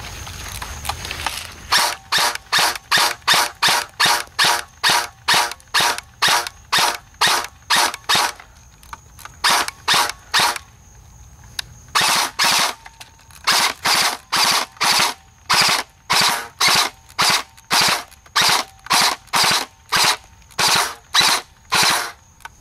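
JG M16A2 airsoft electric rifle firing single shots of .20 g BBs in rapid succession, about three a second, with short pauses around the middle.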